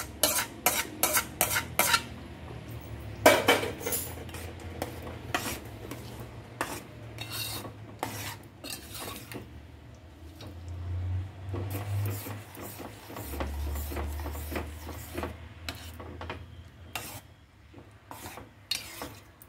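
Steel spoon stirring thick bread halwa in a metal pot: irregular clinks and scrapes against the pot's sides and bottom, densest in the first couple of seconds.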